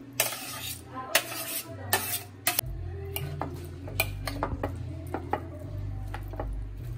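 Grilled pork and cucumber slices being tossed in a glass bowl: a few short rustling bursts, then a metal spoon clinking and scraping against the glass many times, with a steady low hum underneath.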